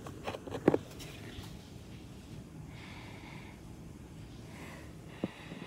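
A few sharp clicks and knocks in the first second, then two soft breaths, about a second and a half apart, over a low steady background hum.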